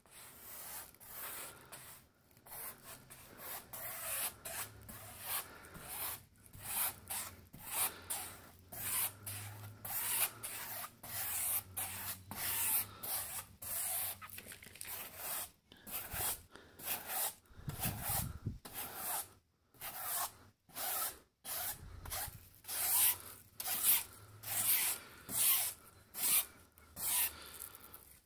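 A synthetic brush scrubbing shiny varnish onto an acrylic painting on canvas, brushed firmly back and forth in a quick run of rubbing swishes, about two a second.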